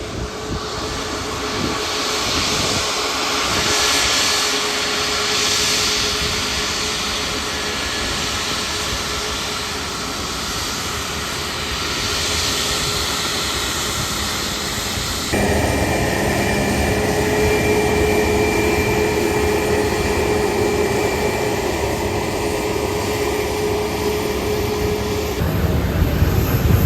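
Jet aircraft engines running with a steady roar and a constant hum. The sound changes abruptly about halfway through and again near the end.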